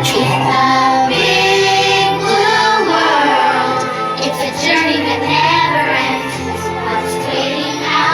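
A song playing, with child-like and female voices singing over a band with a sustained, shifting bass line.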